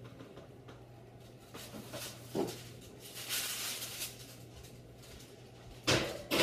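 Indoor room tone with a steady low hum and a few scattered soft knocks and rustles, the loudest a sharp knock near the end.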